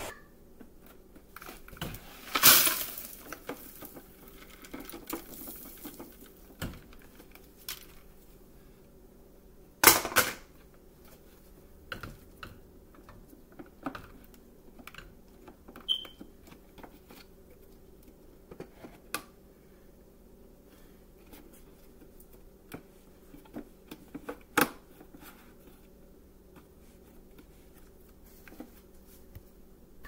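Scattered clicks and knocks of hard plastic as the bagless Hoover WindTunnel's dust cup is handled and emptied into a plastic trash can, the vacuum switched off. The knocks are irregular, with a few louder ones, the strongest about ten seconds in.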